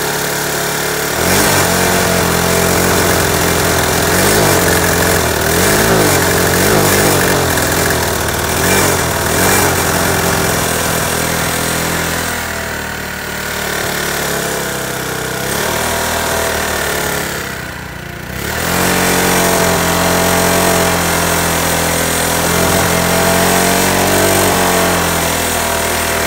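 Honda Helix 250 scooter's single-cylinder four-stroke engine running with dish soap in its crankcase instead of oil. It is revved up and down repeatedly, drops back toward idle twice, then holds at steady higher revs near the end.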